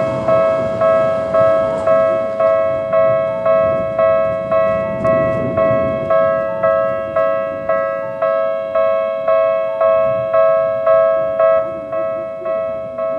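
Electronic level-crossing warning bell of the Tokyu type, a bright ding repeating about twice a second: the crossing signal is active, warning of an approaching train.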